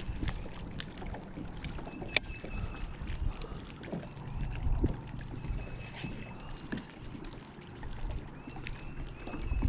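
Fishing kayak on a pond: a low wind rumble with scattered small knocks and clicks from the boat and the angler's gear, and a few short high tones.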